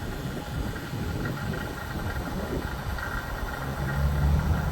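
NAVAC 7 CFM vacuum pump running steadily, pulling a deep vacuum on an air-conditioning system. Its low hum grows louder near the end.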